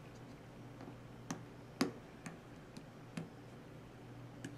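Short, sharp metal clicks, about six of them at uneven intervals and the loudest a little under two seconds in, from the parts of a partly disassembled Spyderco Endura 4 folding knife being worked apart by hand; the gummed-up liner and blade resist coming apart.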